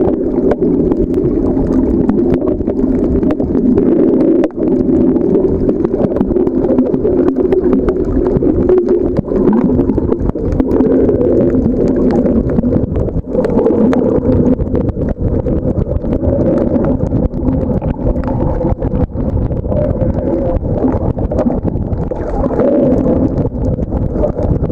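Muffled underwater noise: a steady low rumble of water moving around the submerged camera, with faint scattered clicks throughout.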